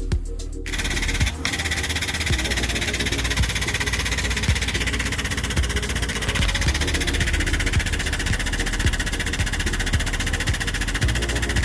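An engine running steadily at idle, with a light knock that repeats about once a second. Background music cuts off about half a second in.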